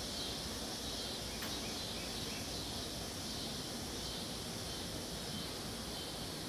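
Steady background ambience: an even high-pitched hiss with no clear event, and one faint click about one and a half seconds in.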